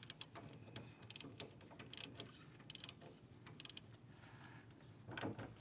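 Faint clicking of a ratchet wrench tightening the bolt that holds the A/C lines to the condenser: short runs of clicks about once a second, louder near the end.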